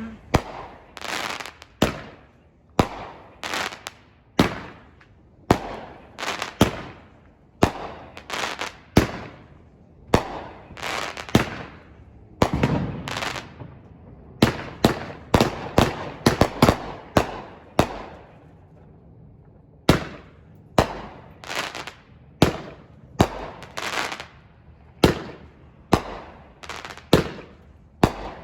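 Aerial fireworks going off in quick succession during a finale: sharp booming reports about one to two a second, each trailing off into a crackle, with a brief lull about two-thirds of the way through.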